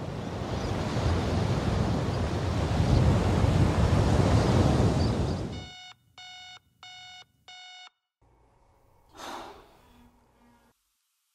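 A loud rushing noise swells and cuts off abruptly. A digital alarm clock then beeps four times, about two beeps a second, followed by a short breath.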